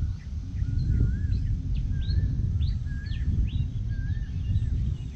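Birds calling: a repeated wavy whistled phrase and many short chirps, over a heavy, uneven low rumble.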